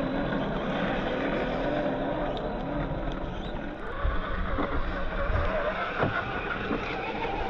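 Electric motor and gear drive of a DF Models DF4S Toyota 4Runner RC crawler whining as it drives through mud, the pitch wavering up and down with the throttle and rising after about four seconds. A few short knocks sound around four and six seconds in.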